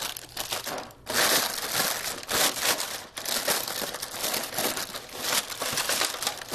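Parchment paper being wadded up and crumpled by hand: a dry, irregular crinkling with short breaks about a second and about three seconds in.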